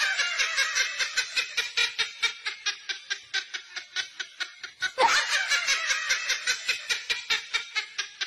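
A person laughing hard in quick, even pulses at about four a second. The laugh breaks off and starts again loudly about five seconds in.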